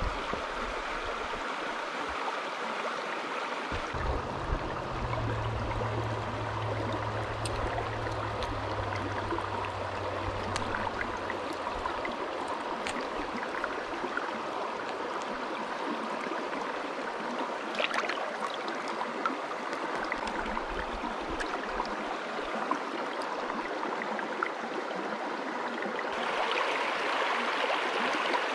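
Shallow rocky creek running over stones, a steady rushing babble that gets louder near the end, close beside a small riffle. A low rumble sits under it from about four to twelve seconds in, with a few light clicks here and there.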